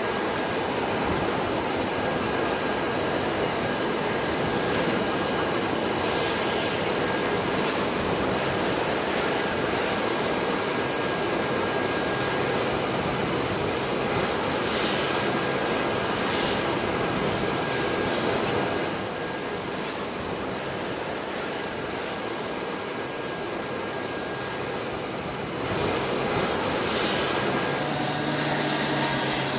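Airbus A380-800's four Rolls-Royce Trent 900 jet engines running at taxi power: a steady rush with a high whine. The sound drops suddenly a little about two-thirds through and comes back just as suddenly near the end.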